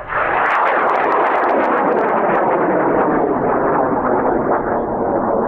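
A Cesaroni O3400 solid rocket motor ignites and burns. A loud, steady rushing noise comes in suddenly, with sharp crackle in the first second.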